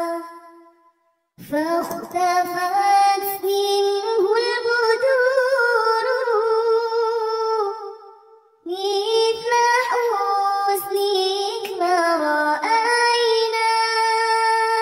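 A high, child-like voice singing a shalawat, a devotional song in praise of the Prophet Muhammad, in two long drawn-out phrases with wavering ornamented pitch. Each phrase begins after a short break, the first about a second and a half in and the second just past the middle.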